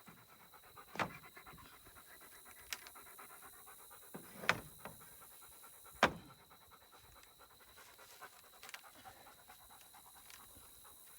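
German shepherd panting rapidly and steadily close to the microphone, with a few sharp knocks of a hammer on wood, the loudest about four and a half and six seconds in.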